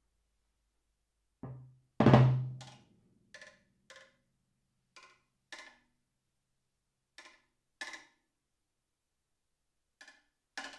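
Solo percussion on timpani: a soft drum stroke about a second and a half in, then a loud one that rings with a low pitch for about a second. These are followed by a sparse, irregular string of about nine short, dry clicking taps.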